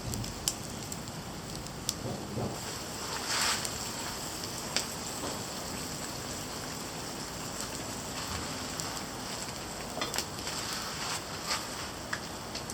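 A wood campfire crackling, with scattered sharp pops over a steady hiss.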